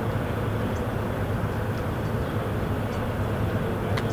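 Steady low rumble of an idling engine, with a sharp click near the end.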